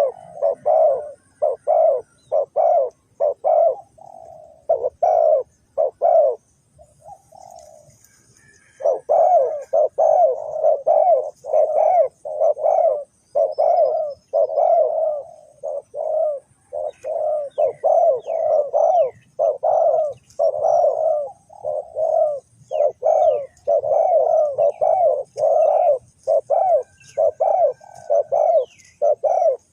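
Spotted dove cooing: a long run of short, low coos, a few each second, with a break of about two seconds a quarter of the way in. Faint high chirps of small birds run behind it.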